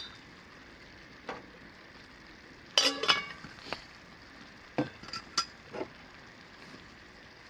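Metal cookware clinking and scraping as cooked pasta is added to a pan of simmering ground-turkey taco mixture, with a faint steady sizzle underneath. The loudest is a cluster of ringing clinks about three seconds in, with a few more scattered clinks after it.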